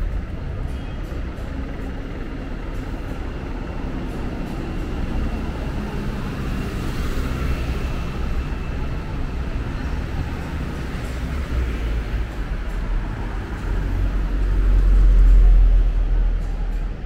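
Road traffic on a city street: a steady low rumble of engines and tyres, with a louder low rumble swelling about fourteen seconds in and easing off near the end.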